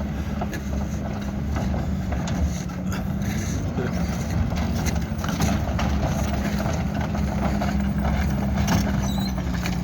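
Heavy-equipment diesel engines, a wheel loader and a backhoe, running steadily while they push a crawler, with scattered short knocks.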